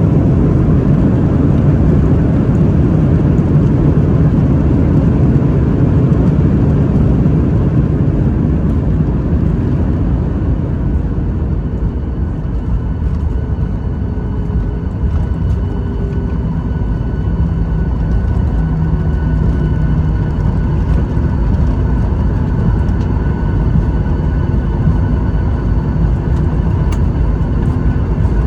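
Steady engine and airflow rumble of a passenger jet heard from inside the cabin. It eases a little about a third of the way in, and faint whining tones come through in the second half.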